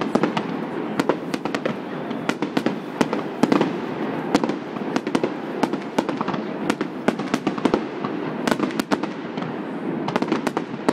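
Fireworks display: aerial shells bursting in a rapid, irregular string of sharp bangs, several a second, over a continuous rumble.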